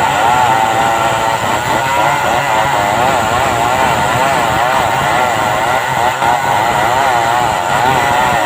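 Stihl 070 two-stroke chainsaw running at high revs and ripping along a log, its pitch wavering up and down as the load on the chain changes.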